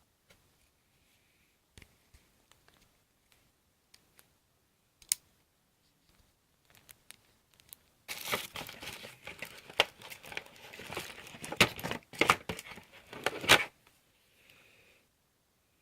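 Packaging crinkling and tearing as an item is unwrapped, a dense crackling run of about six seconds in the second half, after a few scattered small clicks and taps.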